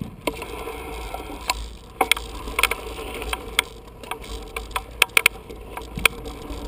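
Bicycle ridden over bumpy dirt: irregular sharp clicks and rattles from the bike and its mounted camera, over a low wind rumble.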